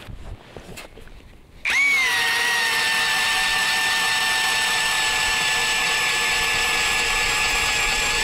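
Cordless drill turning an ice auger (a Heimendinger drill with a Tonar Motoshtorm 130 auger), boring a fishing hole through the ice. It cuts in a little under two seconds in with a whine that dips slightly in pitch as it bites, then runs steadily.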